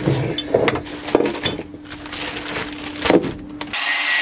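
Knocks and clatter of debris being handled and pulled out of a floor hatch by hand, over a steady low hum. Near the end this gives way abruptly to a handheld angle grinder running against metal with a hissing rasp.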